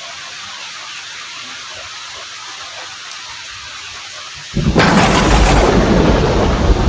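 Steady rain hissing, then about four and a half seconds in a sudden loud thunderclap that rolls on as a heavy rumble.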